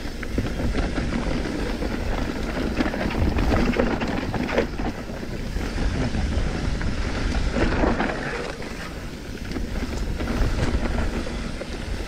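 Enduro mountain bike riding fast down a dirt forest trail: wind buffeting the helmet-mounted microphone over the rumble of the tyres on dirt, with the bike clattering and knocking over bumps and roots throughout.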